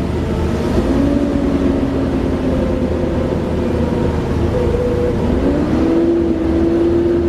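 Class 37 diesel locomotive 37030's English Electric V12 engine running with the loud turbocharger whine known as a 'hoover'. The whine shifts in pitch, climbing about five and a half seconds in.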